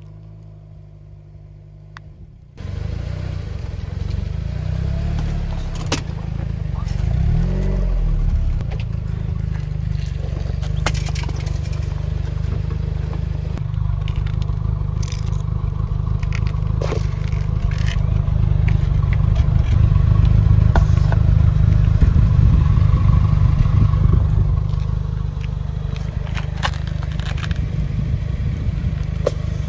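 A car's engine rumbles steadily while its tyre presses and rolls over spiky squishy rubber balls on asphalt. Short scrapes and crackles from the tyre and grit come through over it, after a quieter opening couple of seconds.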